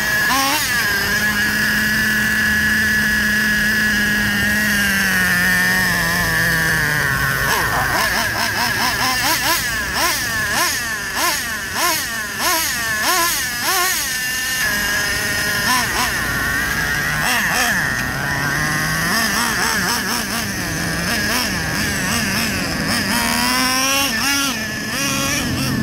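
Small nitro glow engine (Traxxas 3.3) of an RC monster truck running at high revs during break-in, with the wheels spinning free. A steady high whine whose pitch drops a few seconds in, wavers up and down through the middle as the throttle is worked, then steadies again.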